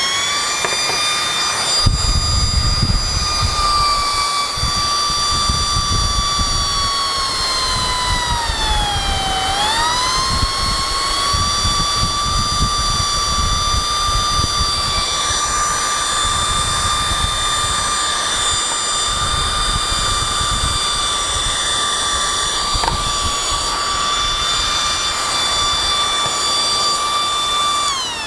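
High-RPM CPU cooling fan in a homemade PVC-pipe table fan running on a DC motor speed controller, giving a steady high-pitched whine. The whine rises as the fan spins up, dips and climbs back about nine seconds in as the speed changes, and starts falling right at the end. A low rumble of moving air comes in about two seconds in.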